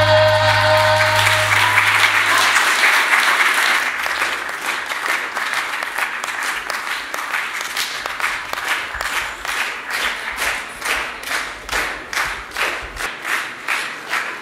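Audience applause, with the music's last held chord fading out under it in the first few seconds. The clapping then falls into unison, a steady rhythmic clap of about two beats a second.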